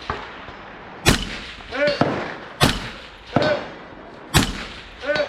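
Three rifle shots about a second and a half apart, each followed under a second later by a short metallic ring from a distant steel target being hit.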